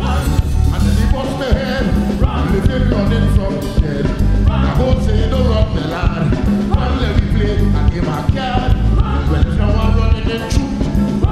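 Live calypso band playing, with a saxophone and brass section over bass guitar and drums, keeping a steady dance beat.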